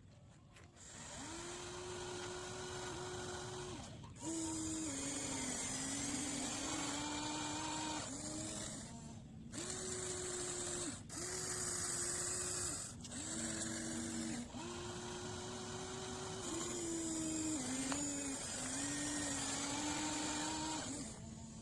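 Radio-controlled excavator's small electric motors whining as it digs, running in spells of one to three seconds with the pitch stepping up and down and brief gaps between moves.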